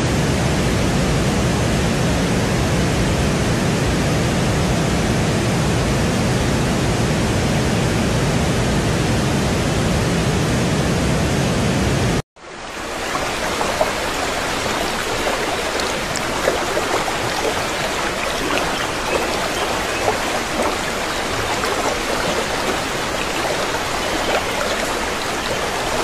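Stream water rushing, a steady full rush. About twelve seconds in it cuts out for a moment and comes back as a lighter, brighter babble of shallow water, full of small splash and bubble sounds.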